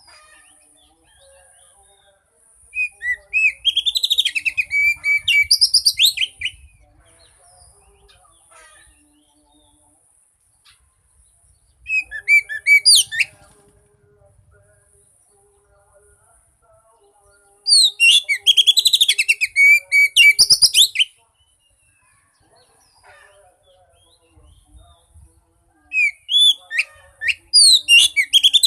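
Oriental magpie-robin (kacer) song, the kind played to prompt a silent bird to sing. It comes in four bursts of fast, varied whistles and chirps, each a few seconds long, with pauses of several seconds between them.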